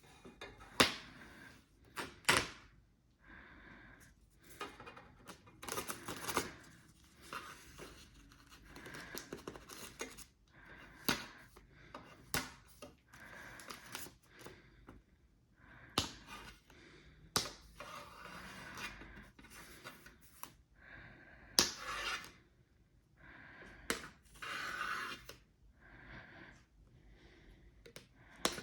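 Packaging being handled and opened by hand: scattered sharp clicks and knocks between stretches of rustling and tearing.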